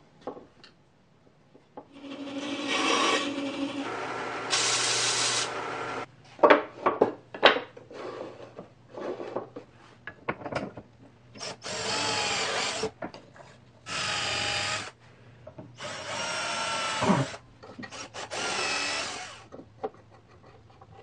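Woodworking power-drill sounds: a longer drill run early on, a string of knocks as wooden parts are handled, then four short drill runs of about a second each, one winding down near the end.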